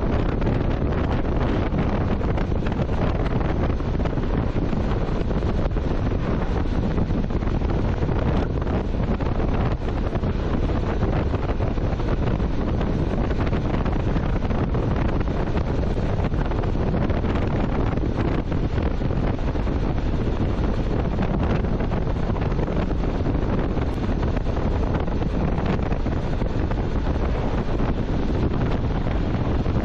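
Steady wind rushing over the microphone of a camera on a motorcycle moving at road speed, a constant low rumbling hiss with no clear engine note.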